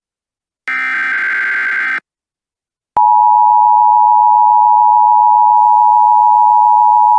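Emergency Alert System header data burst, a harsh electronic buzz ending about two seconds in, then after a second's pause the loud, steady two-tone EAS attention signal, starting about three seconds in and held to the end.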